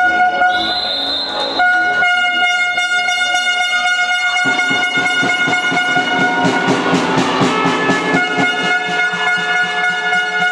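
Spectators' horn blown in long blasts at one steady pitch, with a short break about two seconds in and another near the end. A fast rhythmic beat runs underneath from about halfway through.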